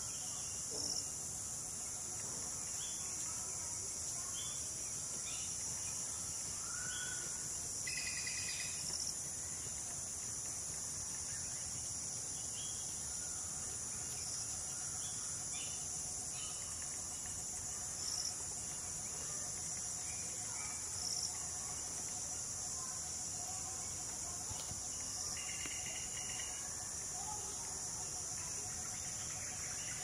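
A steady, high-pitched chorus of insects, with scattered short bird chirps; louder runs of chirps come about eight seconds in and again near the end.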